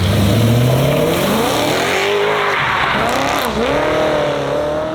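Car engine accelerating hard, its pitch climbing steadily under full throttle, dropping sharply at a gear change about three and a half seconds in, then climbing again.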